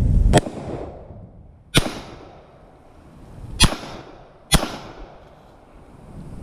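Four gunshots from a 9mm Glock pistol, fired at uneven intervals: two about a second and a half apart, then two more in quicker succession, each with a short echoing tail.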